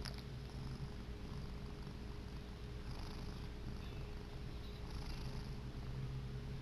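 Domestic cat purring steadily, a low continuous rumble that swells and eases gently with its breathing.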